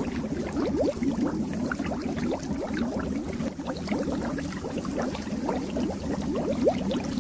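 Fish tank water bubbling continuously: a dense, steady stream of small bubbles rising and popping.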